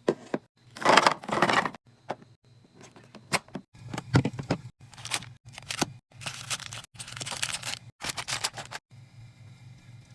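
A mini fridge being restocked by hand: packaging crinkling and tearing in several bursts, with sharp clicks and knocks as items are set down. A low steady hum runs underneath, and the handling eases off near the end.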